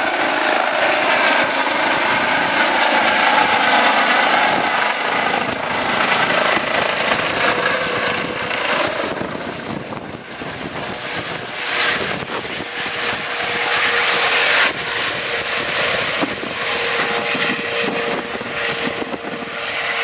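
Eurocopter EC135 medical helicopter taking off and climbing away overhead: the rush of its rotor with several steady high whining tones on top. The level dips about halfway and drops suddenly about three quarters of the way through.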